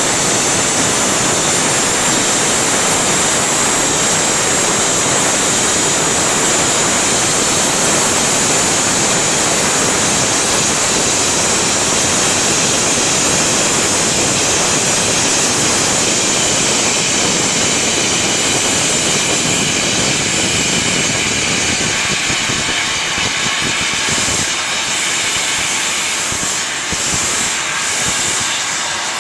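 Glassblowing lathe's gas burner flame burning with a loud, steady rushing hiss. A faint higher whine sits over it through the middle, and the low end thins near the end.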